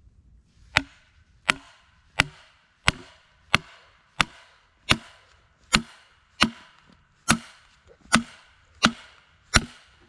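Steady, evenly paced axe blows on a log being split lengthwise for boards: thirteen sharp strikes, about three every two seconds, each with a short woody ring.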